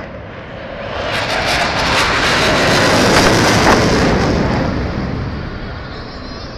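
Jet aircraft flying past: a wide rushing jet noise that swells from about a second in, is loudest around the middle and fades away again.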